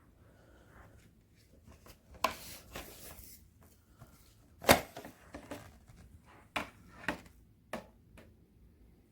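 Handling noises: a rustle, then a scattered series of sharp clicks and knocks, the loudest just under five seconds in. No motor is running.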